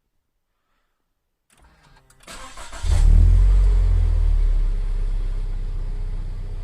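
Subaru BRZ's flat-four boxer engine with an HKS supercharger being cranked by the starter about a second and a half in, catching near the three-second mark with a loud flare of revs, then settling down toward idle.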